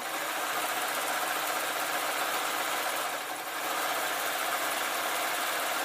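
Electric sewing machine running steadily at speed, stitching two fabric panels of a patchwork blanket together in one continuous seam, with a brief slight dip a little past three seconds.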